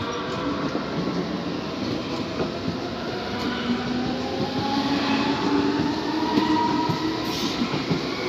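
Stuttgart S-Bahn electric multiple unit pulling out along the platform. Its wheels run on the rails under a whine from the traction motors that rises in pitch as it picks up speed.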